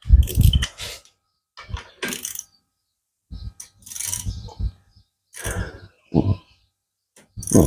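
A wrench clinking and scraping against a small ATV engine's cylinder head as it is fitted and worked, in about six short bursts with pauses between them.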